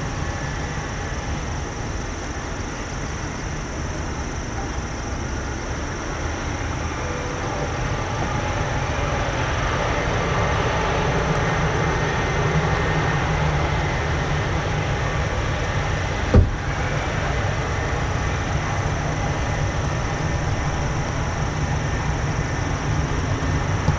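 Boeing 767-300 jet engines running as the landed airliner rolls out down the runway: a steady rumble that swells a little about ten seconds in. One sharp knock about sixteen seconds in.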